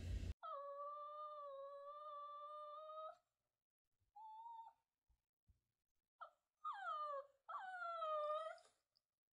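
Puppy whining: one long, steady whine of about three seconds, then a short higher squeak, then two more whines near the end that drop in pitch.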